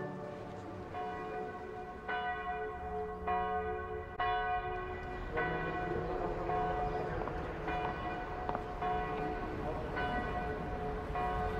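Church bells ringing, struck one after another about once a second, each stroke ringing on into the next.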